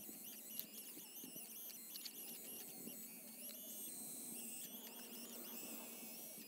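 Hydraulic RC excavator's pump running with a thin, high whine whose pitch wavers as the boom and arm are worked.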